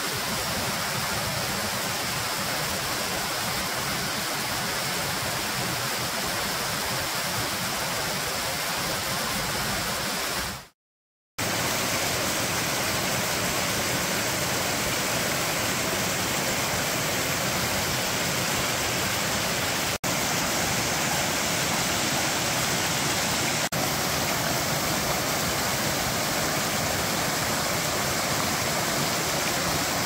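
Steady rush of Soco Falls and its rocky mountain stream, water falling and tumbling over rock. The sound cuts out for about half a second about a third of the way in, then comes back a little louder.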